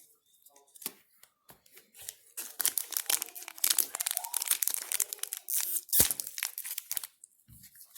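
Wrapper of a Weiss Schwarz trading-card booster pack being torn open and crinkled. A few light clicks come first, then dense crackling from about two seconds in until near the end.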